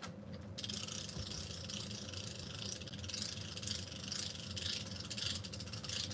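An insect stridulating: a high buzzing trill of rapid pulses that starts about half a second in and stops suddenly near the end, over a faint low hum.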